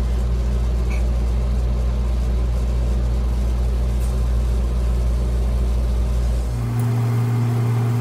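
Steady low machine hum that switches to a different, slightly higher steady hum about six and a half seconds in.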